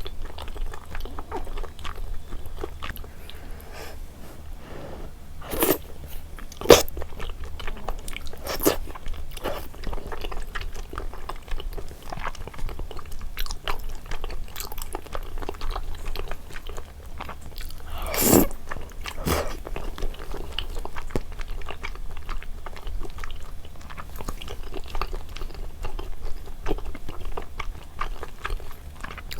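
Close-up eating sounds of rosé braised chicken with glass noodles: steady wet chewing and small mouth clicks, with a few louder, sharper bites, the loudest about 18 seconds in.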